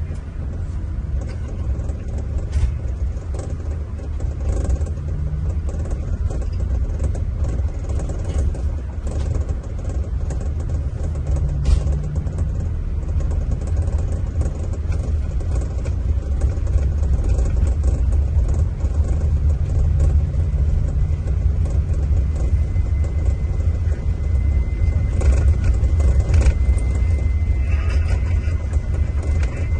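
Scania diesel engine of a Marcopolo Paradiso 1800 DD G7 double-decker coach running under way, a steady low rumble with road noise that grows slightly louder toward the end.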